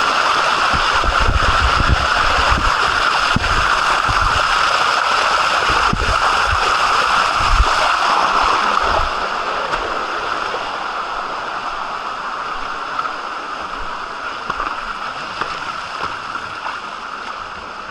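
Waterfall water rushing steadily over rocks, a constant hiss that drops in loudness about halfway through and keeps fading. Low buffeting on the microphone in the first half.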